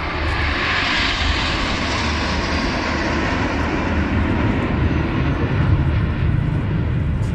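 Nine BAE Hawk T1 jets flying past in close formation: a steady jet roar. Its high hiss is strongest in the first couple of seconds and then fades, while a deeper rumble grows.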